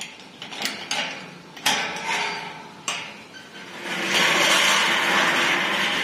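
Metal gate being handled and opened: a series of sharp clanks and clicks from the latch and bars over the first three seconds, then a couple of seconds of steady rushing noise.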